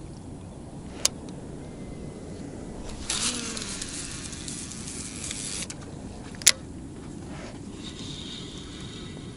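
A cast with a baitcasting reel: a sharp click, then the spool whirring for about two and a half seconds as line pays out, followed by a loud, very short click. A steady low rush of wind runs underneath.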